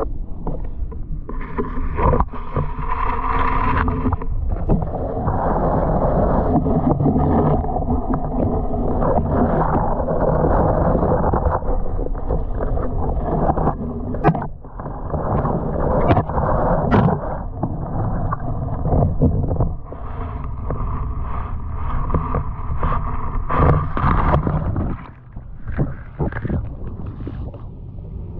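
Muffled underwater noise from a submerged camera: a steady rushing and gurgling of moving water with low rumble, broken by a few sharp knocks in the middle. It drops in level near the end.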